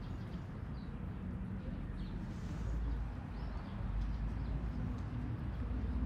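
Steady low rumble of distant city traffic, with a few faint, short bird chirps about one, two and three seconds in.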